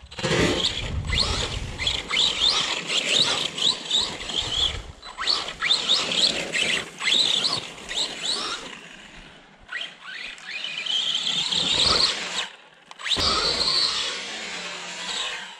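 Arrma Big Rock RC monster truck's electric motor whining, its pitch rising and falling over and over as the truck accelerates and lets off, with short breaks between runs.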